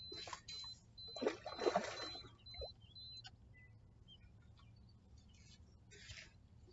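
Electronic carp bite alarm beeping about twice a second, then stopping about three seconds in, over water splashing at the bank.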